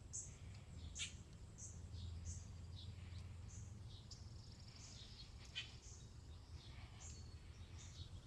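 Faint, high, short bird chirps repeating every second or so over a steady low hum, with a couple of soft clicks.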